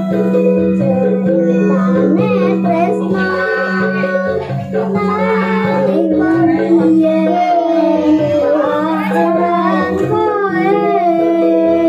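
A young child singing into a microphone over backing music with a held keyboard chord, with a woman's voice singing along.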